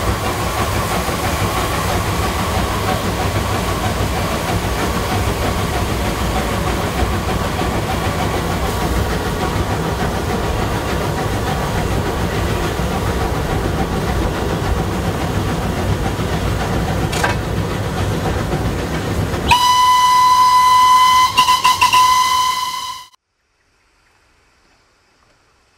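LSWR T9 4-4-0 steam locomotive No. 30120 running along the line, heard from on board: a loud, steady running noise. About three-quarters of the way through, its steam whistle gives one long blast with a brief stutter, cut off suddenly.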